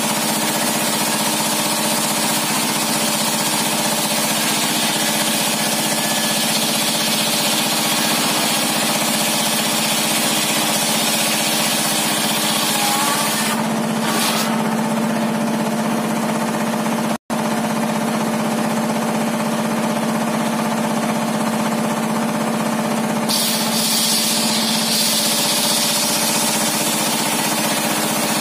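A homemade circular table saw runs steadily while its blade rips a large timber beam, with a high cutting hiss over the machine's drone. The hiss eases off in the middle and picks up again near the end. The sound cuts out for an instant just past halfway.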